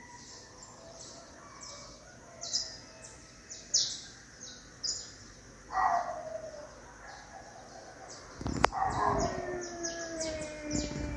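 Cats yowling in a fight: a falling wail about halfway through, then a sharp knock and a longer, drawn-out falling yowl near the end. Short high chirps repeat steadily behind them.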